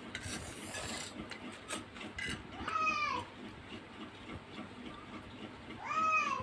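A cat meows twice, about three seconds apart, each call short and rising then falling. Light clinks of a fork and spoon on metal plates come in between.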